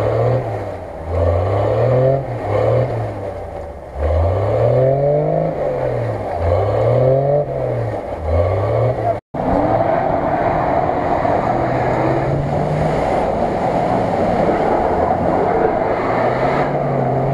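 SUV engine revving hard again and again, its pitch rising and falling about once a second, as it spins its wheels trying to climb a muddy bank out of water. After a sudden cut about nine seconds in, a Mitsubishi L200 pickup's engine runs at steady high revs as it drives through the water.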